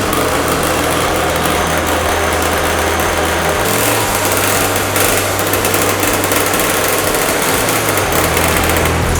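Small 50cc minibike engine running steadily with a high, buzzy note.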